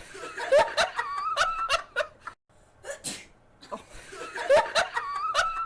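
Giggling, snickering laughter in two bursts of about two to three seconds each, the second almost an exact repeat of the first.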